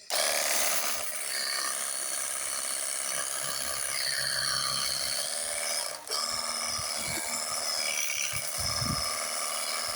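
Cordless battery pressure-washer gun running, its small pump motor giving a steady whine with spray hiss; it cuts out briefly about six seconds in and starts again.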